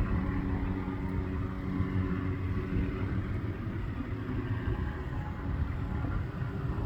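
MD Helicopters MD 530F helicopter running steadily: a continuous low rumble of its turbine engine and rotor, with a steady low hum.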